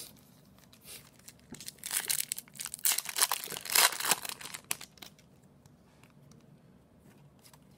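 Foil wrapper of an Upper Deck hockey card pack being crinkled and torn open by hand, a run of crackling rustles that stops about five seconds in.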